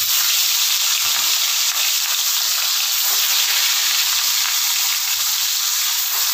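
Rui fish pieces sizzling steadily as they shallow-fry in hot mustard oil in a wok, with more pieces laid into the oil one by one.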